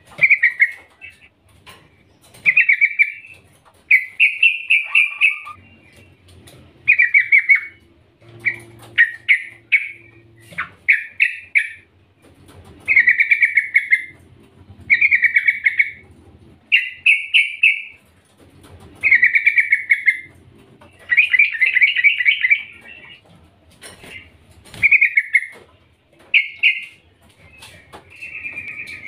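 Yellow-vented bulbul singing short phrases of quick, bubbly notes, one about every two seconds. This is the call the uploader presents as a female calling a male.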